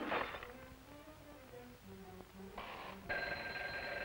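A sharp knock at the very start, then a quiet stretch of faint musical notes. About three seconds in, a cartoon alarm-clock bell starts ringing steadily and keeps on.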